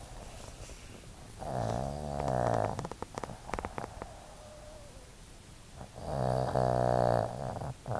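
A sleeping pug snoring: two long, pitched snores about four seconds apart, each lasting about a second and a half, with a few faint clicks between them.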